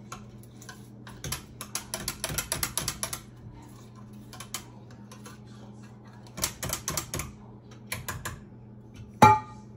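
A utensil clicking rapidly against a mixing bowl in quick runs while cold butter is worked into flour, followed by one louder knock with a short ring near the end.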